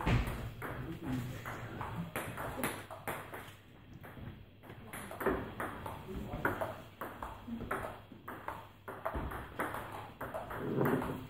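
Table tennis rallies at two tables: the ball clicking off bats and table tops in quick, irregular strokes, with a few short pauses between points.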